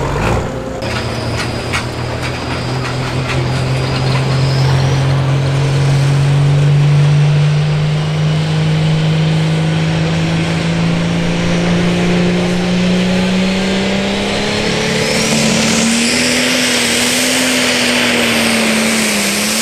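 Turbocharged diesel engine of a pro stock pulling tractor, its note climbing slowly as it is run up. About fifteen seconds in it goes to full throttle for the start of the pull, with a high turbo whistle sweeping upward and a loud rush of exhaust.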